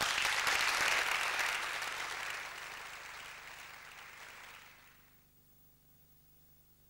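Audience applauding, loudest at the start and dying away over about five seconds.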